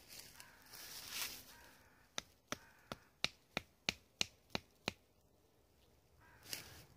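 Wood being chopped: about nine sharp knocks at a steady pace of roughly three a second, with brief rustling before them and again near the end.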